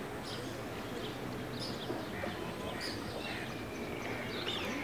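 Birds chirping and calling, short scattered chirps with a few gliding calls near the end, over a steady background hiss.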